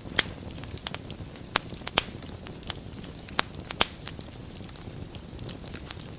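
Wood fire burning in a fireplace: a steady low hiss of flame with sharp crackles and pops at irregular intervals, the strongest a handful spread over the first four seconds.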